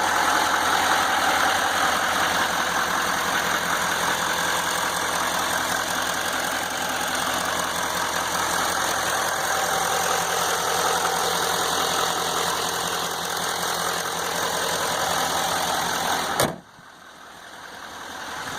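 6.6-litre Duramax V8 turbodiesel idling steadily. About a second and a half before the end the sound drops out abruptly, then swells back.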